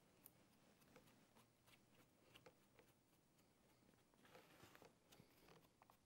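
Near silence with faint, irregular light taps of a foam brush dabbing wet finish on cedar shingles, and a soft brushing stroke about four seconds in.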